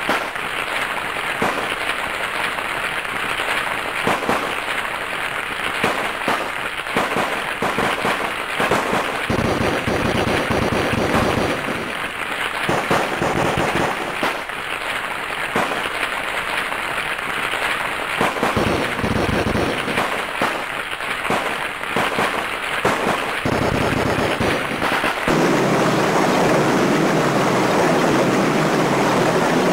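Battle sound effects: dense, rapid crackling gunfire, with deeper explosion rumbles about ten seconds in and again near the end. About 25 seconds in it changes to a steady engine drone.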